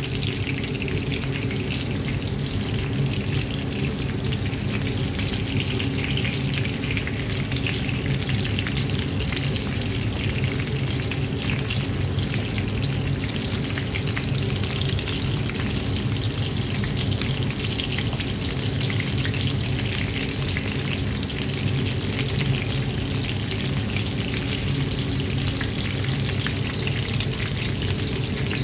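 Chicken nuggets and breaded chicken strips sizzling and crackling steadily as they shallow-fry in olive oil in a frying pan.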